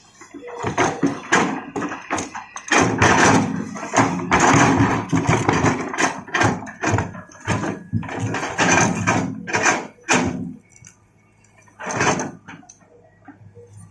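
Hitachi excavator working large rocks: repeated clattering, knocking and scraping of rock against the steel bucket, with the engine running underneath. It eases off about ten seconds in, then one more clatter.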